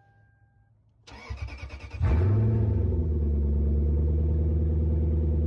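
Lexus LS430's 4.3-litre V8 cold start: the starter cranks for about a second, the engine catches with a brief rev flare and settles into a steady idle.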